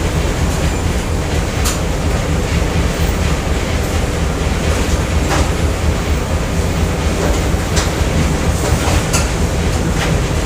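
Factory machinery ambience: a steady heavy low rumble with irregular sharp metallic clicks and clanks every second or two.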